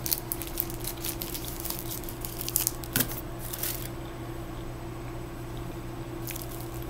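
Plastic snack-bar wrapper crinkling and rustling as it is handled, a run of sharp crackles that dies away about four seconds in, with one more near the end. A steady low hum runs underneath.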